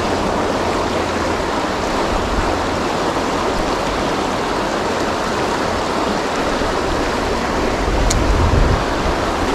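Steady rush of fast-flowing river water. A single short click comes about eight seconds in, followed by a brief low rumble.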